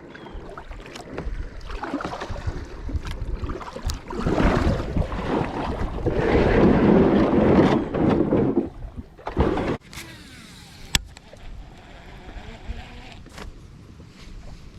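Creek water sloshing and splashing close by, heaviest for several seconds in the middle, followed by a couple of sharp clicks.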